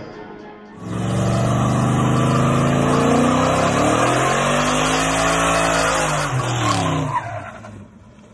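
Box Chevy (Chevrolet Caprice) doing a burnout: rear tyres spinning and squealing on the pavement while the engine revs, starting about a second in. The engine pitch climbs and then drops away, and the sound fades near the end.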